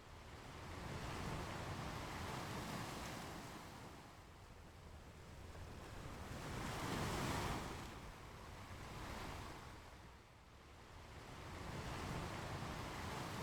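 Ocean waves breaking and washing on a beach, swelling and fading in slow surges, the biggest about halfway through.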